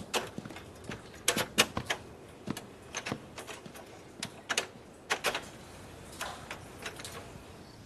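Morse telegraph key on a suitcase radio transmitter clicking as a message is tapped out, in short irregular clicks.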